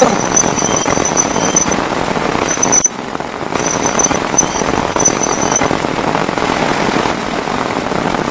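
Heavy rain pouring steadily, with a high, thin pulsing chirr that comes and goes above it. The sound dips briefly about three seconds in.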